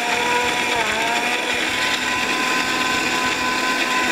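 Electric mixer grinder motor running steadily with a whine, grinding green chillies to a paste in its small steel jar. The pitch dips briefly about a second in, then holds steady.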